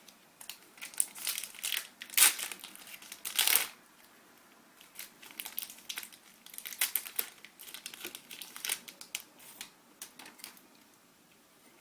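Trading card pack wrapper being torn open and crinkled by hand, in two spells of sharp crackling with a short pause between.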